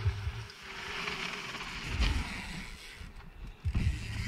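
Mountain bike riding over a dirt line, heard as an even rushing of tyres and air with a sharp knock about two seconds in. The bass of background music stops just after the start and comes back near the end.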